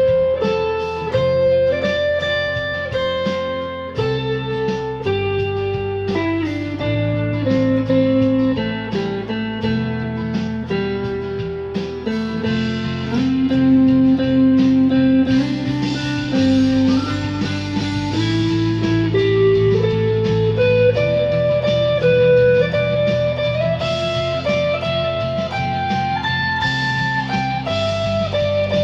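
Electric guitar playing a slow single-note melody, about a note a second, stepping down in pitch through the first half and climbing back up in the second, over sustained low bass notes.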